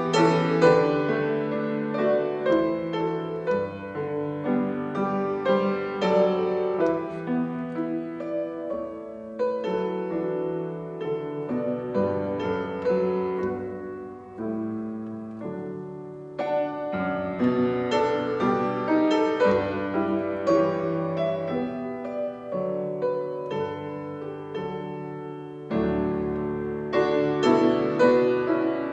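Piano playing an instrumental piece, getting quieter about halfway through and then picking up again.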